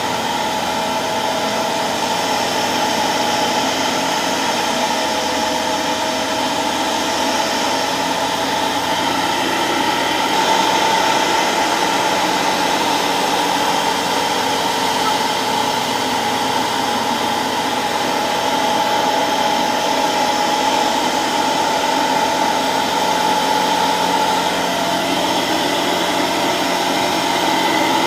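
Kitfox light aircraft's engine and propeller droning steadily in cruise, mixed with rushing wind noise, heard from inside the cabin. The level rises a little about ten seconds in.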